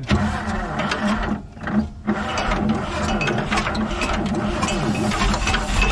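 Starter cranking the old GMC dump truck's 401 V6 on a shot of starting fluid, a fast mechanical clatter with a short break about a second and a half in. The engine starts firing and getting louder near the end.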